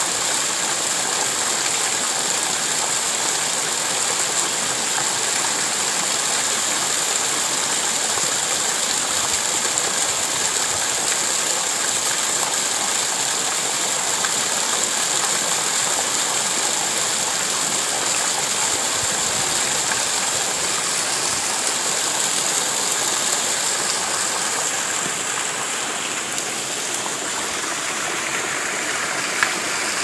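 Steady rain falling on a corrugated tin roof, an even hiss of drops with no let-up, and one sharp tap near the end.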